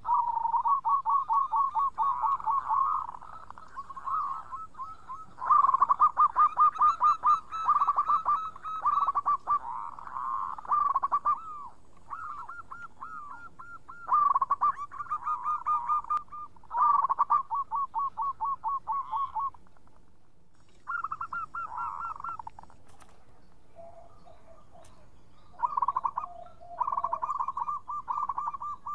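Zebra dove singing: phrases of rapid, staccato cooing notes, one after another with short pauses between them.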